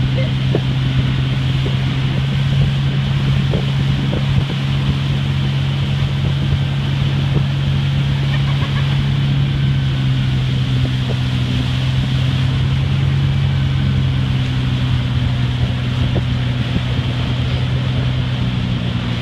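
Motorboat engine running at a steady towing speed, a constant drone, with water rushing in the wake and wind on the microphone.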